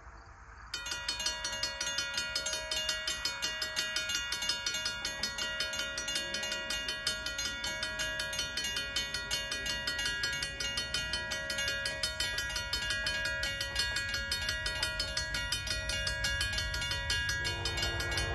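Railroad grade-crossing warning bell starts ringing suddenly about a second in and keeps on in a fast, even rhythm. The crossing signals have been activated by an approaching train and the gates are coming down.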